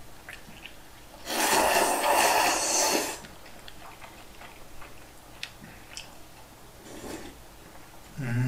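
A person slurping udon noodles in one loud, hissing slurp of almost two seconds, starting about a second in. A few faint mouth clicks follow.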